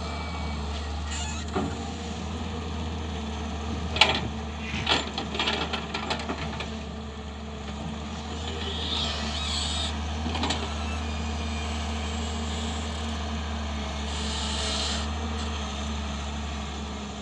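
Excavator's diesel engine running steadily, with a few sharp metallic knocks about four to six seconds in and again near the middle, and two short stretches of hissing.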